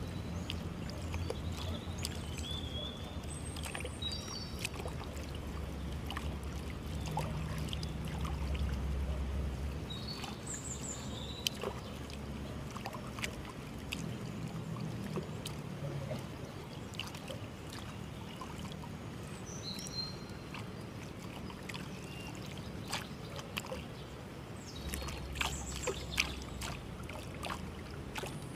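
Outdoor nature background sound: short high chirps now and then over a low steady rumble, with scattered small clicks.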